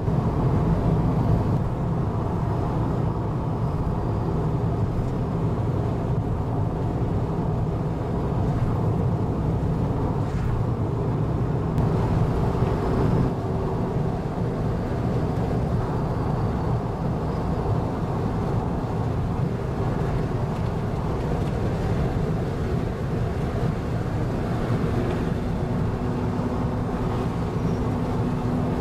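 Straight-piped exhausts of lowered old Japanese cars cruising in convoy at steady speed: a continuous low engine drone mixed with road noise. Near the end a steadier engine tone comes through.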